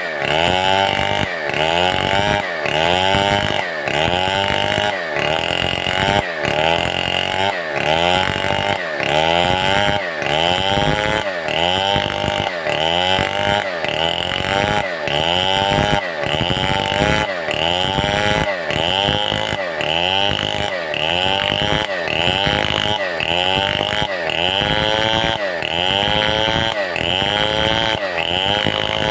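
Stihl 070 two-stroke chainsaw cutting wood, its engine pitch falling and rising again in a steady rhythm about once a second.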